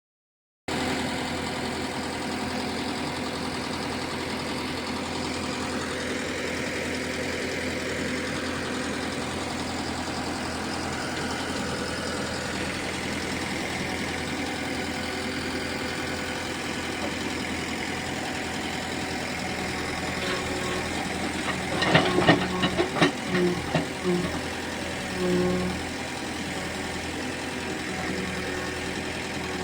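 JCB backhoe loader's diesel engine running steadily, with a burst of sharp knocks and clatter and a few swells in the engine note about two-thirds of the way through.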